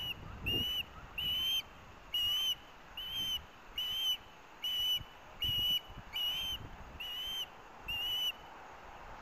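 Juvenile osprey giving a steady series of high, whistled food-begging calls, one short note about every second, which stop near the end.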